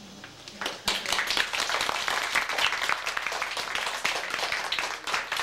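A small audience of children and adults applauding, starting about a second in and going on steadily.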